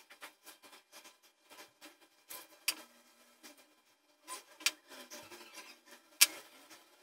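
Small metal clicks and soft rubbing as pliers squeeze metal crimp end clasps onto a leather-and-chain bracelet. Three sharper clicks stand out, the last and loudest about six seconds in.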